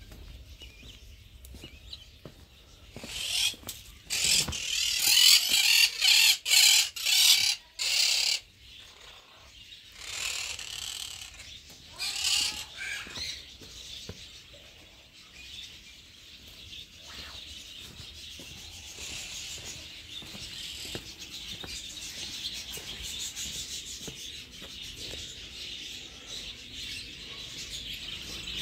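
Parakeets giving a run of loud, harsh screeches a few seconds in, with a second shorter run a little later. A steady high chatter of birds carries on under them.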